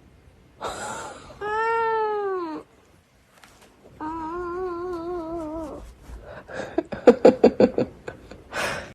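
Cat yowling: a loud drawn-out call that rises then falls, then a longer wavering call, followed by a quick run of short calls and a brief noisy burst near the end.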